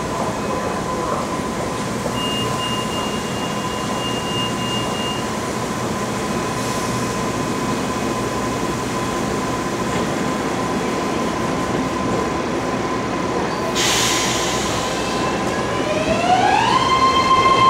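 A BART train standing at a platform with a steady high whine over a general hum, and a thin higher tone for about three seconds a couple of seconds in. About fourteen seconds in comes a short hiss. Near the end, after its doors have closed, a whine rises in pitch and levels off as the train's propulsion powers up to pull away.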